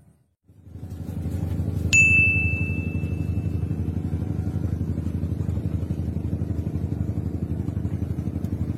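A small engine running steadily, with one sharp metallic ding about two seconds in that rings briefly.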